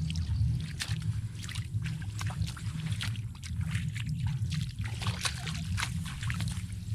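Bare feet splashing and sloshing through shallow muddy water and wet grass, a run of irregular splatters over a steady low rumble.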